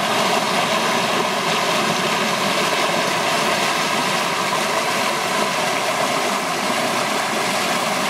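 Engine of a passing river passenger motor boat running steadily, a constant drone with a hiss of wash and air over it.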